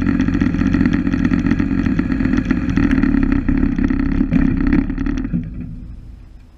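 Woodmizer LT15 Go portable bandsaw sawmill running steadily, then shut off about five seconds in and winding down to a stop.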